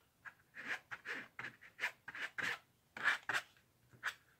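Fabric paint being rubbed through a silk-printing screen onto a silk scarf: a quiet run of short, scratchy rubbing strokes, about two to three a second.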